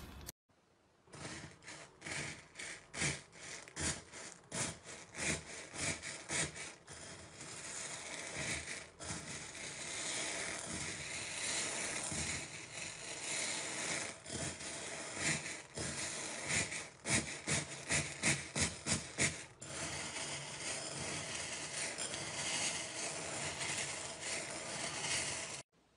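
A hand raking and squeezing through a bowlful of small pearl beads: a dense clattering rattle of beads clicking and rubbing together. It comes in surging strokes for several seconds, then runs on as a more continuous rattle, and cuts off abruptly near the end.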